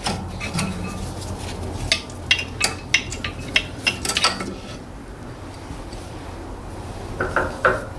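A screwdriver levering a brake pad out of a Mercedes W204 front brake caliper: a run of sharp metallic clinks and scrapes for a couple of seconds, a quieter stretch, then a few more clinks near the end.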